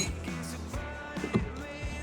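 Background music with a steady low bass and held notes.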